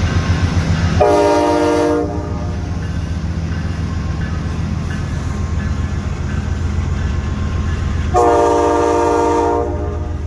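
Two blasts of a diesel locomotive's air horn, the first about a second long and the second about a second and a half, several notes sounding together as a chord, over a steady low rumble of the train.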